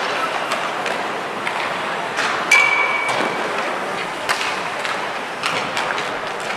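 Ice hockey practice on the rink: sticks clacking on pucks as passes are made and taken, with scattered knocks over a steady rink hubbub. About two and a half seconds in, a sharp hit rings out as a metallic ping for under a second.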